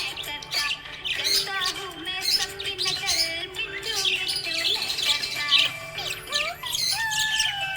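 Budgerigars chirping and twittering in quick, continuous bursts of high squeaky calls, over background music.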